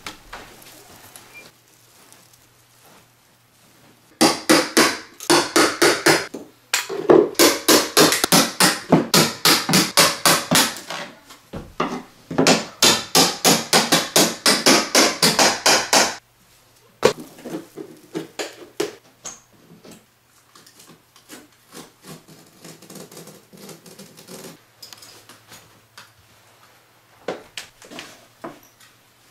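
Hammer striking a metal pry bar to work up carpet tack strip from a wooden subfloor: a fast run of sharp blows lasting about twelve seconds, then fainter scattered knocks.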